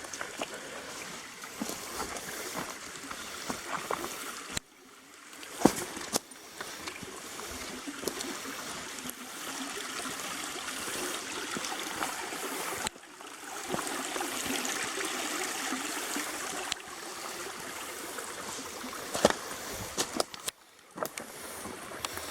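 Small creek trickling and gurgling over rocks in a steady wash, with a few sharp knocks.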